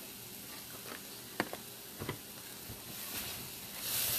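Sliced button mushrooms sautéing in a frying pan with a faint, steady sizzle and a few light clicks; near the end the sizzle grows louder as a spatula stirs them.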